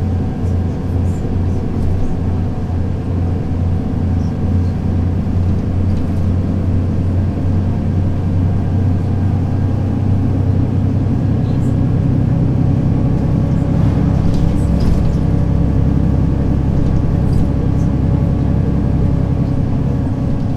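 Mercedes-Benz O 530 Citaro city bus diesel engine running at idle with a regular low throb. About halfway through, the engine note rises and gets louder as it comes under load, then holds steady.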